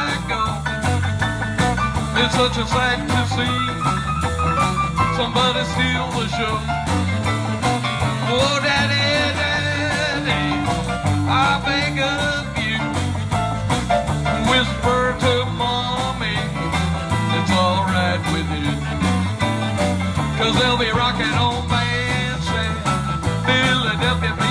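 A rock and roll oldies band playing an upbeat number with a steady beat.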